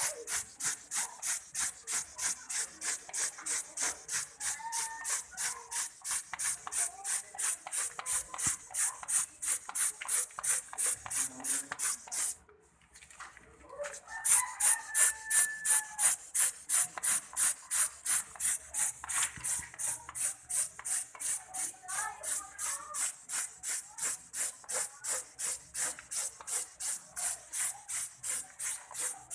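Paint being sprayed from a hand-pumped sprayer in quick rhythmic puffs of hiss, about three a second, pausing briefly near the middle. A rooster crows a few times in the background.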